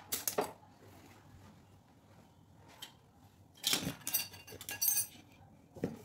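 Hand tools and small metal parts clinking and rattling as they are handled: a short clatter at the start, a single click a little before the middle, and a longer clatter about three and a half to five seconds in.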